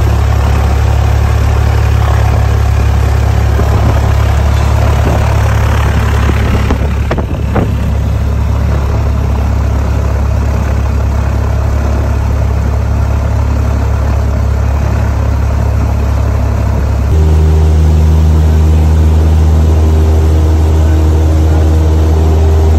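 Cessna 172SP's four-cylinder Lycoming engine and propeller running at low power, heard from inside the cabin as a loud, low drone. About three quarters of the way through, the note changes abruptly and becomes slightly louder and steadier.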